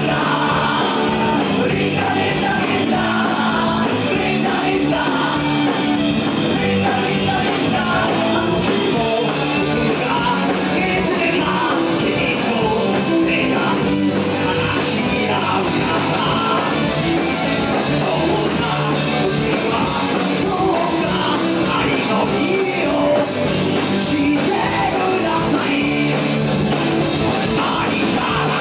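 Punk rock band playing live: loud electric guitars, bass and drums, with a singer singing over them.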